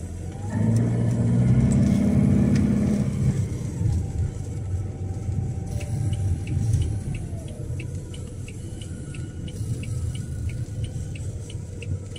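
Vehicle engine and road noise while driving, with a louder engine surge in the first few seconds. From about six seconds in there is a light, regular ticking, about three a second.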